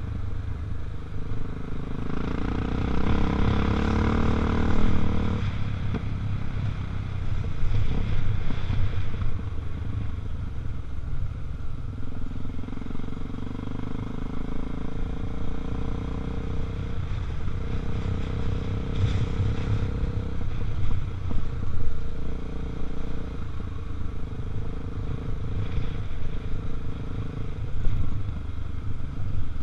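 Honda Tornado 250 motorcycle's single-cylinder four-stroke engine running while under way. Its pitch rises and falls several times as the throttle changes, over a steady low rumble.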